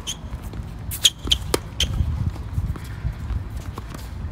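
Tennis ball being hit back and forth in a rally on an outdoor hard court: sharp racket-on-ball strikes and ball bounces, the loudest about a second in, with a cluster of clicks just after it.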